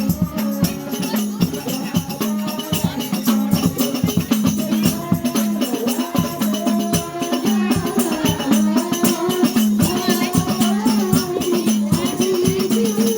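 Hadrah ensemble playing: rebana frame drums beating a fast, dense rhythm, with jingling percussion and voices singing a devotional melody over them.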